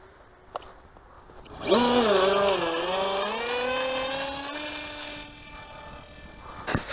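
RC Dragonfly model plane's motor and propeller throttling up for a take-off run on snow: a whine that comes in sharply about two seconds in, dips, then climbs slowly in pitch and fades as the plane moves away.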